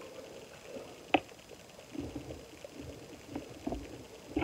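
Faint handling sounds of a glass dropper bottle of facial oil: a single sharp click about a second in, then soft low bumps and rubbing.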